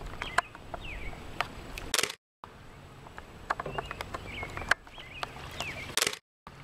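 Birds chirping over quiet outdoor ambience, with scattered sharp clicks and knocks. The sound cuts out completely twice, each time for a moment.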